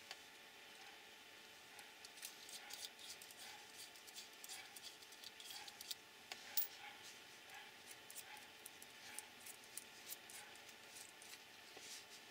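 Small, scattered clicks and taps of hands handling and fitting small aluminium and plastic RC car shock absorber parts, over a faint steady hum.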